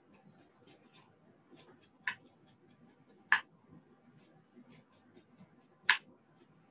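Fresh ginger being peeled by scraping its skin with the back of a spoon on a plastic cutting board: a run of light, quick scrapes, with three sharper taps, about two seconds in, near the middle and near the end.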